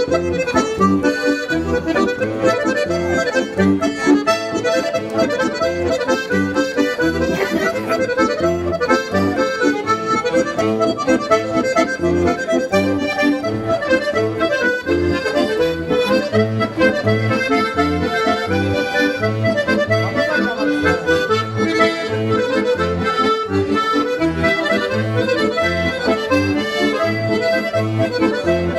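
Two diatonic button accordions playing a three-time bourrée together: a lively folk dance tune over a steady pulsing bass.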